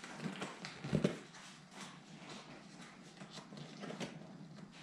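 Rustling and scraping of a car seat cover being pulled and worked into place by hand, with a louder bump about a second in.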